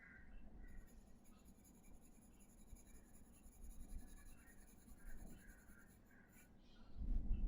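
Faint scratching strokes of a drawing tool sketching on paper, over a faint steady high whine. A louder low rumble starts near the end.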